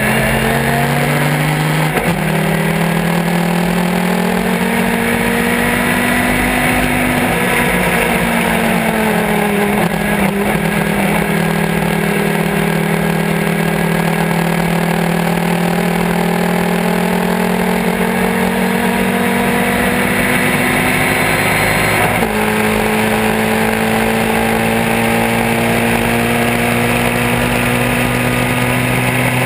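Vintage race car engine heard from on board under hard acceleration, its pitch climbing slowly through a long pull. There is a brief break about two seconds in and a gearchange at about 22 seconds, over a steady rush of wind and road noise. The car is the 1965 Ginetta G4.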